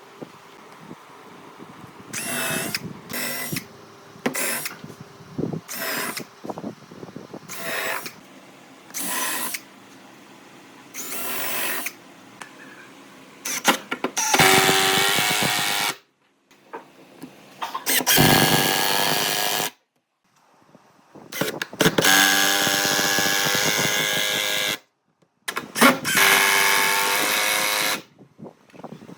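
A power tool working solid wood, run in short bursts and then in several longer runs of two to three seconds, each with a steady whine.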